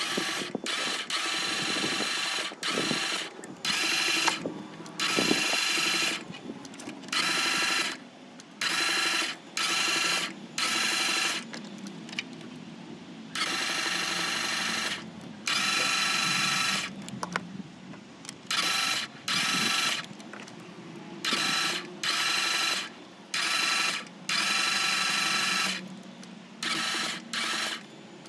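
Starter motor cranking a 2.4 MultiAir four-cylinder engine in repeated short bursts, each about a second long, with brief pauses between them. This is a crank-no-start: when the MultiAir hydraulic valve system loses oil pressure the engine has no compression, and the system is being bled as it cranks.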